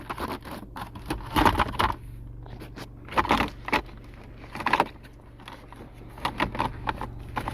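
Plastic interior trim around a car's gear shifter being handled and fitted back into place: several short bouts of scraping, rattling and clicking.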